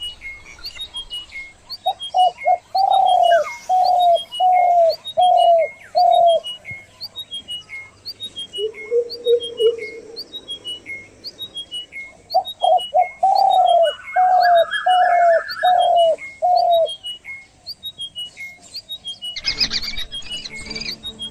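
Several birds calling in a morning chorus: one keeps up short high falling notes about twice a second, while another gives two runs of five or six louder, lower notes. A brief noisy rustle or clatter comes near the end.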